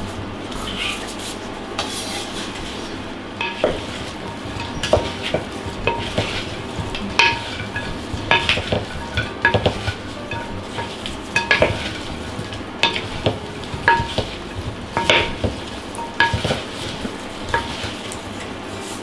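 Gloved hands tossing a wet chopped salad of herring, apple, pickles and onion in a large glass bowl: squelching and rustling, with irregular sharp clicks as fingers and pieces knock the glass, some leaving a brief ring.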